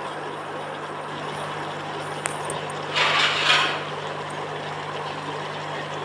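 Chicken pieces frying in a stainless-steel kadai over a gas burner: a steady sizzle under a low hum, with a louder swell of sizzling about three seconds in.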